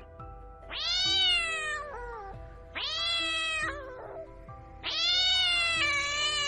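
A cat meowing three times in long, drawn-out calls, each falling in pitch at the end, over soft background music; the third call runs on past the end.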